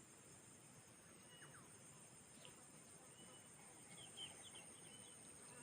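Faint outdoor ambience: insects making a steady high-pitched drone throughout, with a few short bird chirps, most of them in the second half.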